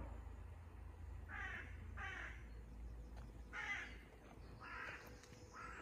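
A crow cawing in woodland: five short, harsh caws about a second apart.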